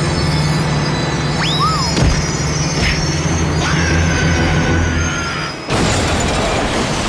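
Cartoon soundtrack for a speeding elevated metro train: a loud, steady rumble mixed with music, with a whistling glide and a thump about two seconds in and a fresh rush of noise near the end.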